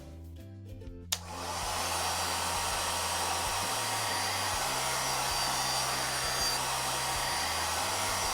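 Hair dryer switched on with a click about a second in, then blowing steadily.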